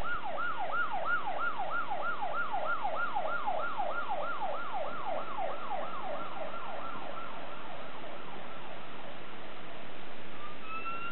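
A fire truck siren on a fast yelp, about two to three sweeps a second, fading away by about nine seconds in. Near the end a slower siren tone starts, rising in pitch.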